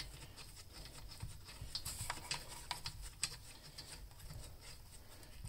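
Faint handling noise: a few light clicks and rubs as a hand grips and works the plastic handle of a chainsaw on its spring anti-vibration mount, over a low room hum.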